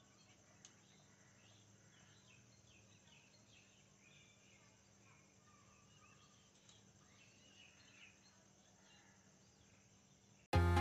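Faint outdoor background with scattered faint bird chirps and a single click about a second in. Loud background music cuts in suddenly near the end.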